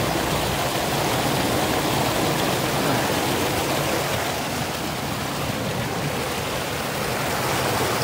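Mountain stream water rushing and splashing over rocks in a small cascade, a steady, unbroken noise.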